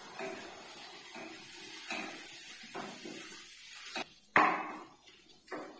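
Spatula stirring and scraping in a wok of sauce, with soft irregular knocks against the pan and one sharper, louder knock about four seconds in.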